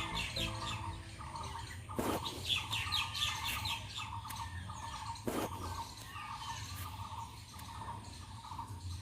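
Small birds chirping: two quick runs of high chirps over steady lower twittering, with two sharp clicks, one about 2 seconds in and one past the middle.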